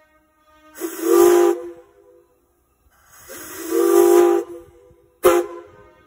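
Steam locomotive chime whistle blown on compressed air, sounding a chord of several notes with a rush of air: two blasts of about a second each, then a short toot near the end.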